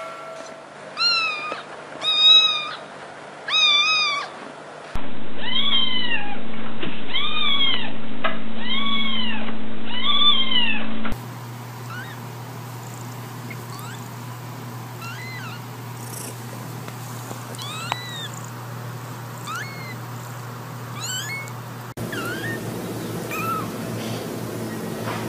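Kittens meowing: a string of short, high mews about a second apart, loud in the first half and fainter later on. A steady low hum runs under some of them.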